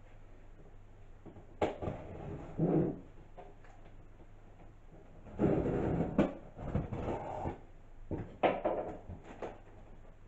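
Cardboard shipping box being opened by hand: knocks and scrapes on the cardboard lid, with a longer scraping stretch about five and a half seconds in as the tape on the lid is worked open.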